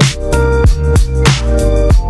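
Electronic background music with a steady drum beat and a sustained bass line.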